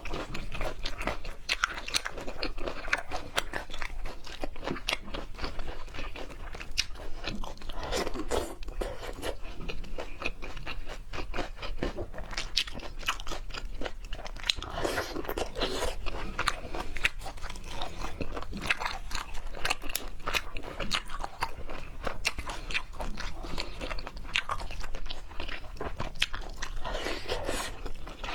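Close-miked eating of seafood: continuous chewing with many quick, wet crunches and mouth clicks.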